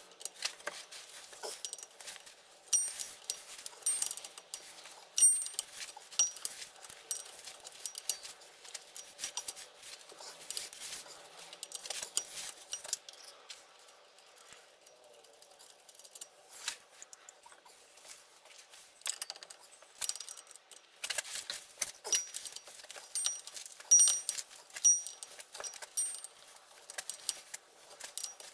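Ratchet and spanner undoing the 18 mm nuts and bolts on a BMW E46's propshaft flex disc (guibo): runs of quick metallic ratchet clicks and tool clinks, busiest near the start and again in the last third.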